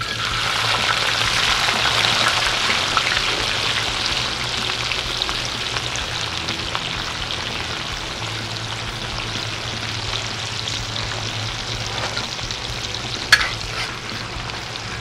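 Diced hash brown potatoes landing in hot bacon grease on a plow-disc cooker (discada), sizzling hard from the moment they hit, loudest in the first few seconds and then easing to a steady fry. Near the end comes a single sharp metal clink of the spatula against the disc.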